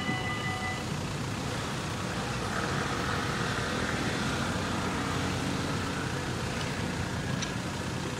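Level-crossing warning bells ringing, cutting off just under a second in as the crossing clears. Then a steady rumble of road traffic while the barriers rise.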